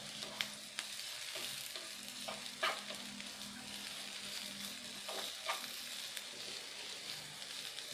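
Sliced shallots and spring onions sizzling in hot vegetable oil in a non-stick frying pan as they soften, stirred with a wooden spatula that scrapes and taps the pan a few times.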